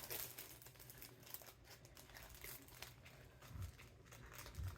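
Faint crinkling and rustling of a diamond painting kit's packaging being handled, with two soft low thumps near the end.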